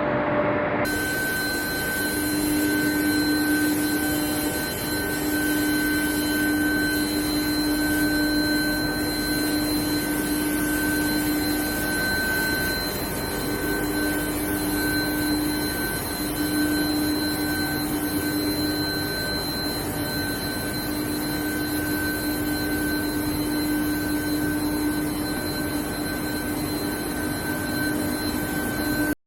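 Induction surface-quenching machine for steel pipe running: a steady electrical whine at several pitches over an even hiss, with a sudden change in the sound about a second in.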